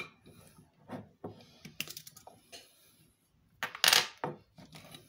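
Glass jar and its screw-on lid clinking and knocking as they are handled: several light clicks, then a louder clatter about three and a half seconds in.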